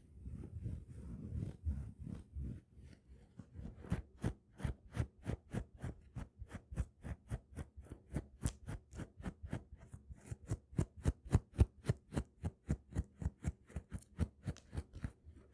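Fingernails scratching a surface close to the microphone, then rapid fingernail tapping on an object, about five taps a second, starting about four seconds in.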